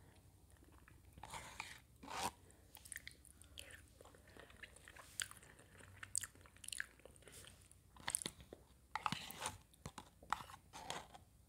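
Chewing close to the microphone, with soft, irregular wet mouth clicks and smacks.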